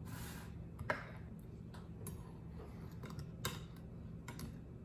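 A few light clicks and scrapes of a knife and a pie server against a ceramic plate while a slice of kunefe, a shredded-pastry dessert, is cut free and lifted; the clearest clicks come about a second in, at about three and a half seconds, and near the end.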